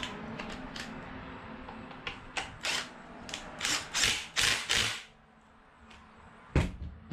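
Cordless drill with a socket extension driving the alternator mounting bolt in a run of short bursts, snugging the alternator in place with the belt fitted loosely. One sharp knock near the end.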